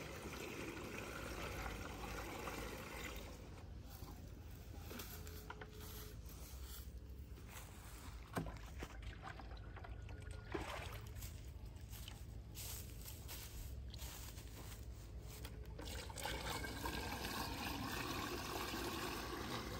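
Liquid trickling and splashing as it is poured from a bucket through a funnel strainer into a spray drone's tank. It is clearest in the first few seconds and again near the end, quieter in between with a couple of light knocks.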